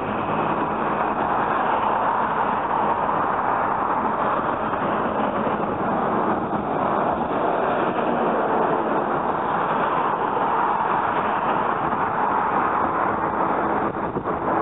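Road traffic noise from vehicles passing close by, with a large truck going past about halfway through. The rush of tyres and engines is loud and steady, swelling slightly as vehicles pass.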